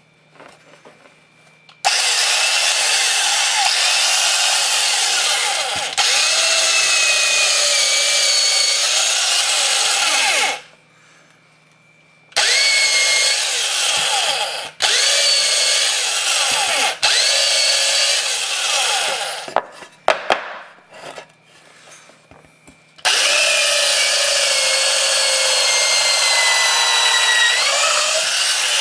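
Restored Zephyr electric drill running with a twist bit boring into a wooden board, in three long runs with short stops between, the middle run broken twice. The motor's whine wavers and dips as the bit bites into the wood and winds down at the end of each run.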